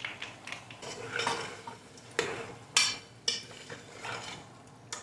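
A long-handled spoon stirring chunks of beef in tomato sauce inside an aluminium pressure cooker, scraping and knocking against the pot in irregular strokes.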